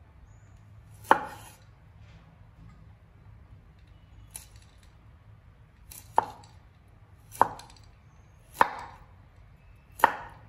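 Cleaver chopping broccoli on a wooden cutting board. There are five sharp chops: one about a second in, then four more a little over a second apart in the second half, with a fainter tap in between.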